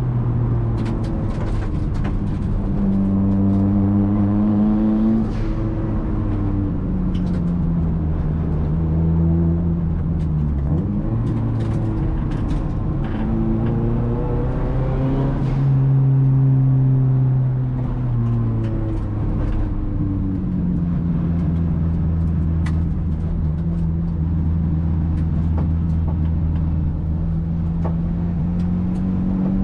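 Big-turbo SR20DET turbocharged four-cylinder in a Nissan S13, heard from inside the cabin, pulling and easing off through a run of bends. The engine note rises and falls several times, holds steady for a long stretch, then climbs again near the end.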